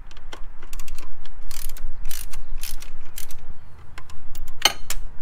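12 mm ratchet wrench clicking in quick runs as it is swung back and forth to loosen a bolt holding the top mount intercooler, with a louder click near the end.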